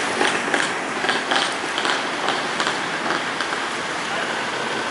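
Irregular clicks and taps over a steady background hiss of outdoor noise; the clicks stop about three and a half seconds in, leaving only the even hiss.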